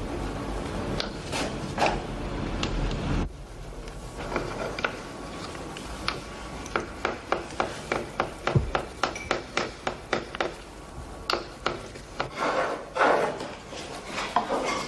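Small hand tool working a carved, gilded wooden piece: a run of short, sharp scraping strokes at about three a second, then a few longer scrapes near the end.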